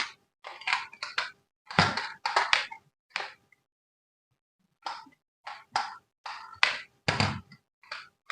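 Hands handling toy packaging and plastic parts: a string of short, irregular rustles and clicks, pausing for about a second in the middle.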